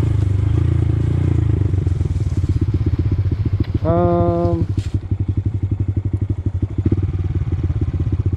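Honda Grom's single-cylinder four-stroke engine running, then easing off about a second and a half in to a slow, even putter in which each firing pulse can be heard separately. A short hummed voice sound comes about four seconds in.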